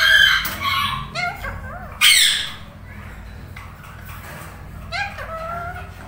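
Indian ringneck parakeets calling in their cage: a burst of short, rising chirping calls at the start, one loud harsh screech about two seconds in, and another short run of calls near the end.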